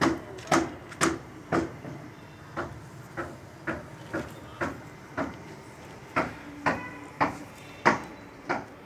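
Steady hammer blows, about two a second, each with a short ring, with a brief pause about two seconds in.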